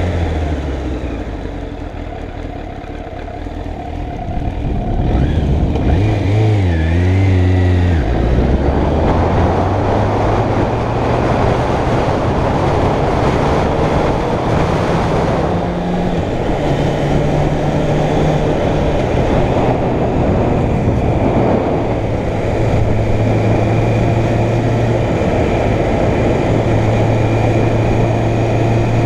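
Suzuki Bandit 600's inline-four engine running under way, heard from the rider's position. It is quieter for a few seconds, its pitch swings up and down about seven seconds in, and then a loud rush of wind takes over as the bike picks up speed.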